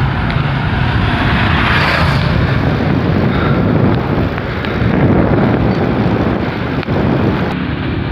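Wind buffeting the microphone as it moves along a road, a steady rumble, with a brighter rushing swell about two seconds in.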